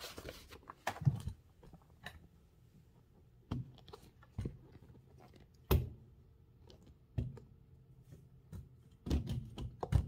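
Scattered clicks and knocks at uneven intervals, with small clusters near the start and near the end: handling noise from the Bennett typewriter and its paper rather than continuous typing.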